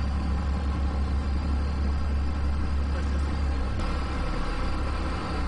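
Low, steady drone of a towboat's engine heard on board, with a wash of water and wind noise over it. The drone changes texture about four seconds in.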